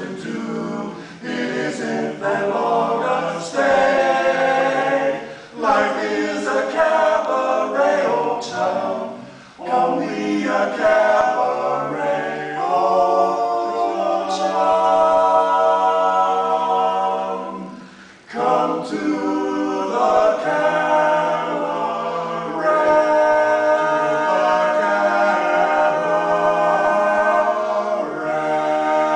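Male barbershop quartet singing a cappella in four-part close harmony, with long held chords in the middle and again toward the end, broken by a short breath about eighteen seconds in.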